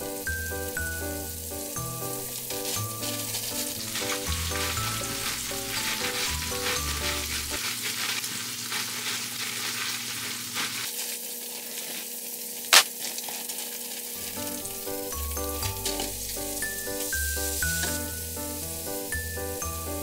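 Food sizzling as it fries in a pan, with small irregular clicks of a utensil stirring it. A single sharp click about thirteen seconds in is the loudest sound. Light background music plays, dropping out for a few seconds around the middle.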